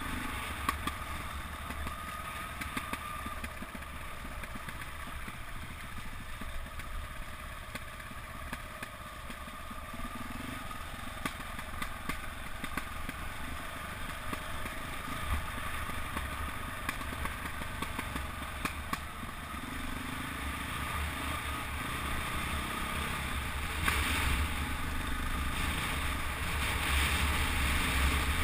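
KTM 400 EXC enduro motorcycle's single-cylinder four-stroke engine running while riding a rutted, muddy track, with scattered knocks and clatter from the rough ground. It grows louder near the end.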